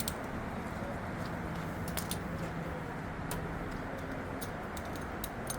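Scattered light clicks and clinks of tools and engine parts being handled, over a steady low background hum.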